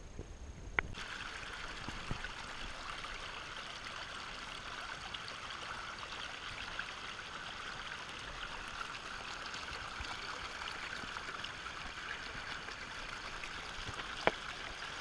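River water flowing in a steady rush, starting about a second in, with a sharp click at that point and another near the end.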